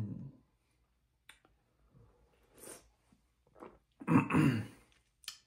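A person tasting iced coffee: a few soft sips and small clicks, then a drawn-out 'mmm' about four seconds in, falling in pitch.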